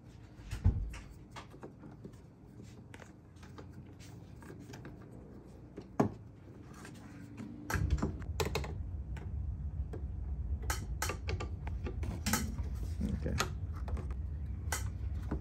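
Scattered clicks and knocks of hard plastic being handled: the bulb sockets and housing of a 2010 Honda Pilot's third brake light being worked by hand. A low steady rumble sets in about eight seconds in.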